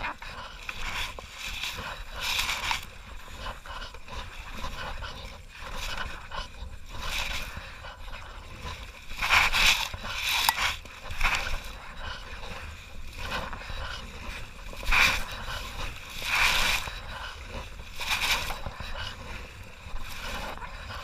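Kayak paddle blades dipping into the river and splashing, in irregular bursts about a second or more apart, with a steady low rumble underneath.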